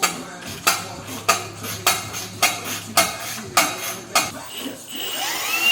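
About eight sharp metallic clinks of tools on metal, evenly spaced a little over half a second apart, then near the end a power tool whirring up in pitch.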